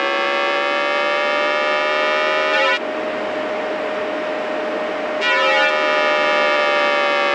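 Simulated train VVVF inverter and traction motor sound: a stack of electronic whining tones that rises in pitch with speed. Between about 3 and 5 seconds in it turns to a hissier sound with one steady tone, then the whine stack returns and falls in pitch as the speed drops.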